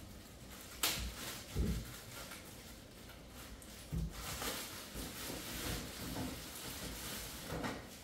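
Groceries and shopping bags being handled on a kitchen counter: a sharp knock a little under a second in, dull thumps about a second later and again about halfway through, with light rustling between.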